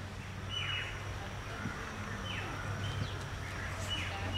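Animal calls: about five high whistles, each holding one note and then sliding down in pitch, over a steady low hum.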